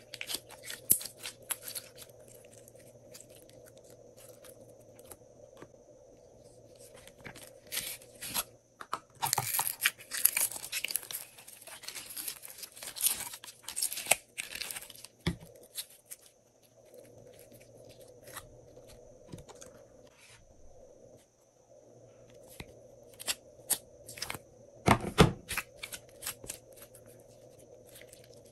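Hands squeezing, stretching and folding glossy slime, giving irregular sticky crackles and pops. The crackling is densest about ten seconds in, with a short, louder burst of pops near the end.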